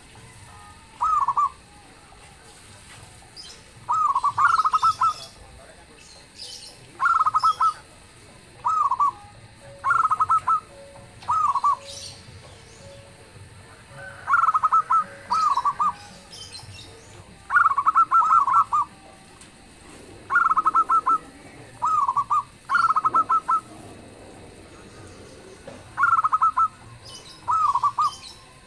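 Zebra dove (local perkutut) cooing: about a dozen short, loud phrases of quick rolling coo notes, repeated every few seconds with gaps between them.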